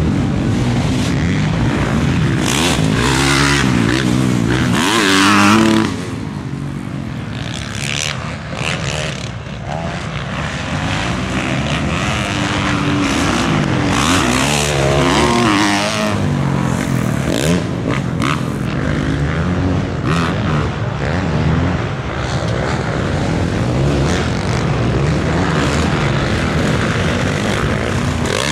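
Motocross dirt bikes racing, their engines revving up and down again and again as they accelerate and back off. Loudest in the first six seconds, then quieter.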